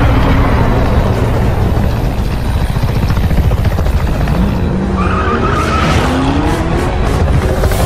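Car engines revving and tyres squealing over a dense rushing noise, as in a car chase. The squeal comes about five seconds in, followed by a few sharp cracks near the end.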